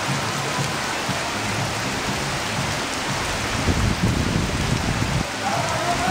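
Steady heavy rain pouring onto a wet paved lane and the rooftops around it. A low rumble swells for about a second and a half midway, and a steady high tone comes in near the end.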